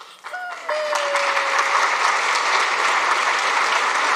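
An audience starts clapping about half a second in and quickly settles into steady applause. One long held cry sounds over it at first.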